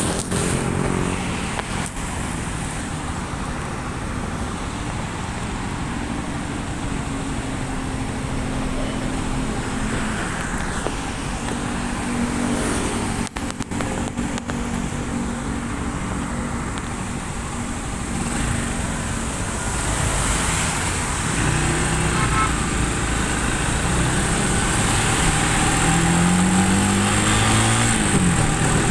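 Motorcycle engine running on the move, with road traffic around it. The engine note climbs through the last several seconds as the bike speeds up, then drops near the end.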